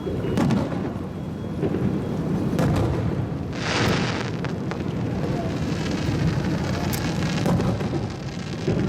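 Fireworks going off: a continuous low rumble with several sharp bangs, a short dense burst of hiss about three and a half seconds in, and a fainter hiss through the second half.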